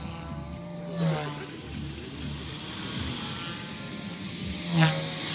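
A radio-controlled model aircraft flying overhead: its motor and rotor or propeller whine steadily, with a high tone that falls and then rises in pitch. Two louder swoops come through, about a second in and near the end, the second the loudest.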